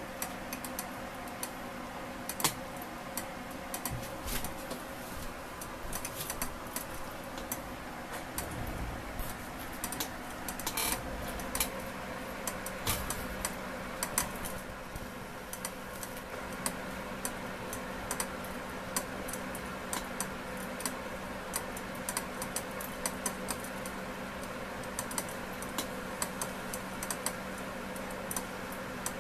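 Dis1 tabletop steam distiller running while distilling lemongrass: a steady hum with many small, irregular ticks and clicks throughout.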